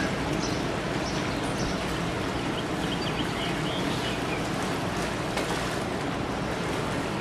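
Steady rushing noise of wind and distant ocean surf, even throughout.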